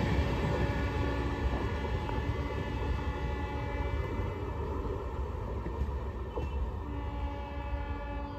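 A passenger train's last coaches roll slowly past on the track and move away, the rumble of wheels and coaches fading steadily. A steady tone runs beneath the rumble and grows plainer near the end.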